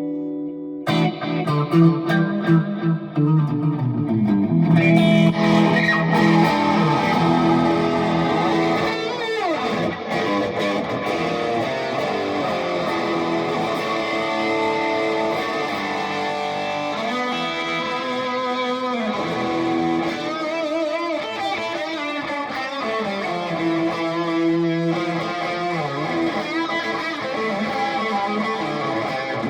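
Gibson Les Paul Custom electric guitar with Custombucker humbucking pickups, played as a sound demo: sustained ringing notes and chords that start about a second in, with pitch bends around a third of the way through.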